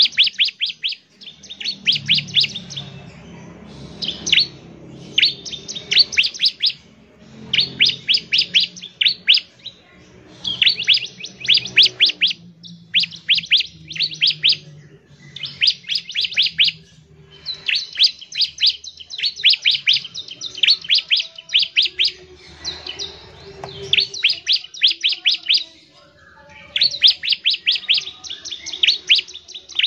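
Bar-winged prinia (ciblek) singing: repeated bursts of rapid, high, down-slurred notes, each burst about a second long with short pauses between.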